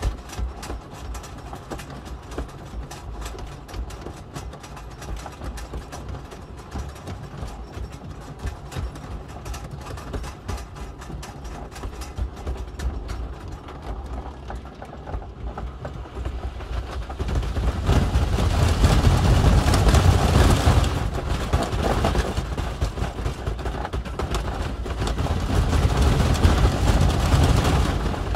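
The Voyage wooden roller coaster's PTC train climbing the lift hill to a steady run of rapid clicks. About seventeen seconds in it goes over the top into the drop, and a loud rushing rumble of the train on the wooden track swells and carries on.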